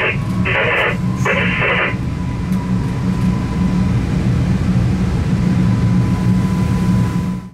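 Steady low hum inside the cab of a Newag Impuls (45WE) electric multiple unit, with two short bursts of hiss in the first two seconds. The sound cuts off suddenly at the end.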